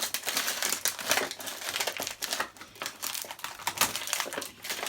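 Toy packaging being handled and pushed apart: crinkling and crackling of packaging, a dense run of small irregular clicks and rustles.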